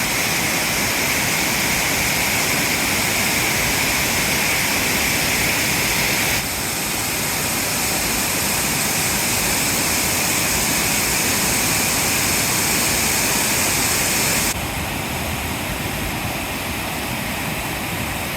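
Water pouring over the Nagashino weir, a low dam spilling like a broad waterfall, in a steady dense rush. The sound shifts abruptly twice, about six and fourteen seconds in, and is a little quieter after the second shift.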